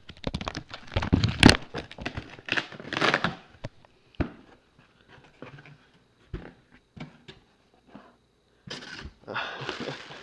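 A cardboard shipping box being torn open by hand: ripping and scraping of cardboard in the first few seconds, then scattered knocks as the box is handled, and crinkling of packing material near the end.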